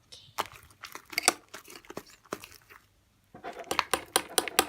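Fluffy shaving-foam slime being squished and pulled by hand, giving a run of sharp crackling pops and clicks, thicker in the last second or so.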